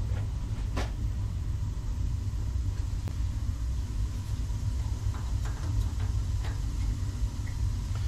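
Steady low rumble of a Burnham atmospheric gas boiler's burners firing, with a faint tick about a second in.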